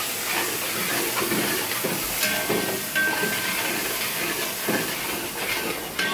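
Chopped tomatoes sizzling in hot oil and fried onions in a large metal pan, a loud steamy hiss that rises suddenly as they go in. A steel spatula scrapes and stirs through it.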